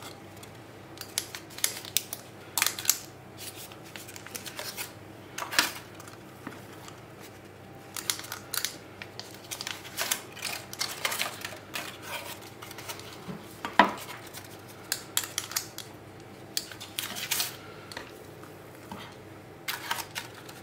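Metal ice-cream scoop scraping and clinking against a glass mixing bowl as thick batter is scooped out, in irregular short clicks and scrapes. The loudest is one ringing clink about fourteen seconds in.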